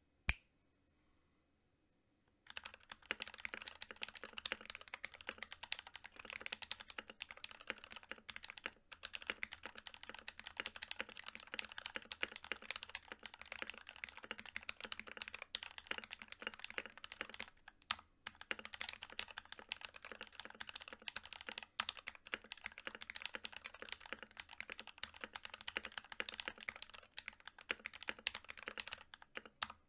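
Fast typing on an NK65 Milkshake Edition mechanical keyboard: prelubed NK_ Silk Yellow linear switches under PBT Cherry-profile keycaps, in a polycarbonate case with an aluminium plate. One sharp click comes first, then a steady stream of keystrokes begins about two seconds in, broken by a few brief pauses.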